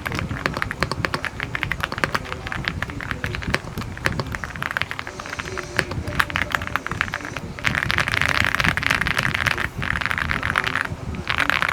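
Typing on an Aula F75 mechanical keyboard fitted with Akko Cream Yellow and Feker Matcha Green switches and PBT Cherry-profile keycaps: a quick run of key clacks that turns into a faster, denser clatter about two-thirds in.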